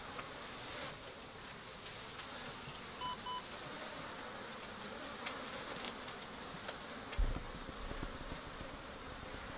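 Steady buzzing hum of insects over a faint hiss, with two short electronic beeps about three seconds in and a brief low thump later on.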